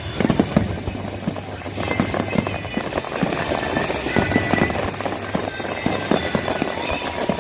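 Fireworks going off: a dense run of rapid pops and crackles, with music underneath.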